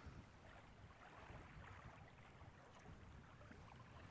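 Near silence: a faint, even outdoor background hiss and low rumble, with a few soft ticks.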